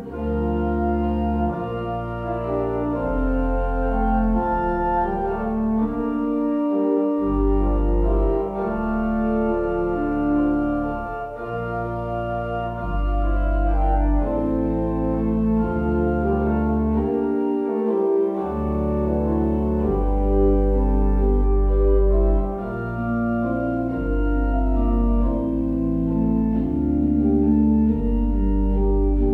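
Organ music: slow, held chords over deep sustained bass notes, changing every second or two.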